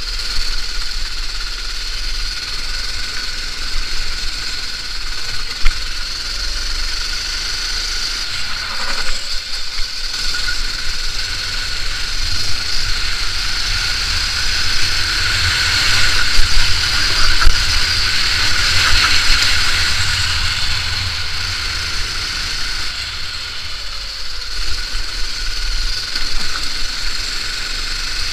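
Go-kart engine running hard at racing speed, heard from on board the kart, growing louder around the middle and easing off again near the end.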